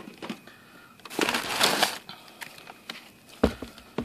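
Packaging being handled: a rustle lasting just under a second, starting about a second in, then a few light knocks near the end.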